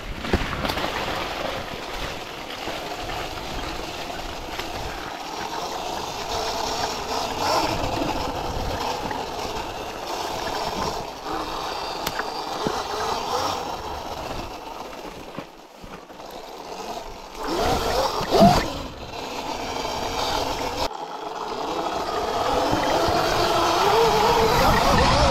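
Sur-Ron electric dirt bike being ridden, its motor whine rising and falling with speed, with a short louder burst about two-thirds of the way through.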